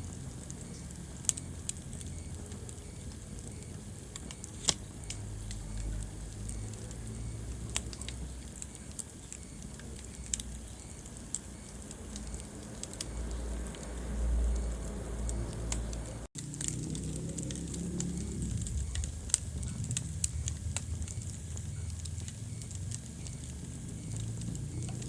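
Wood fire burning in a fireplace: scattered sharp crackles and pops over a low rumble of flames. The sound drops out for an instant about sixteen seconds in.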